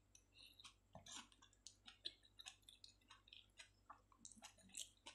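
Faint chewing: soft, irregular wet mouth clicks and smacks, a few each second, as a mouthful of food is chewed.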